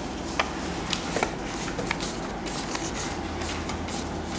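Paper picture cards being leafed through and laid on a table by hand: soft rustles and a scattering of light taps, over a steady low hum.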